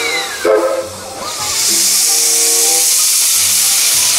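Steam locomotive blowing off steam from its cylinder cocks: a loud, steady hiss that starts about a second in, over background music.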